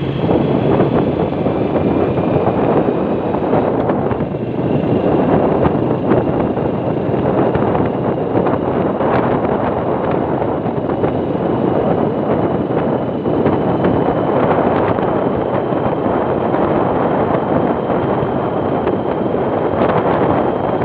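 Wind buffeting the microphone of a vehicle moving along a paved road, with road and vehicle noise and a faint high whine underneath.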